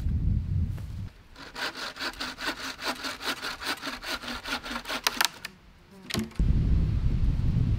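Wooden bow saw cutting through wood with quick, even strokes, about five a second, for some four seconds before stopping. A low rumble comes before and after, with a couple of sharp knocks just before the rumble returns.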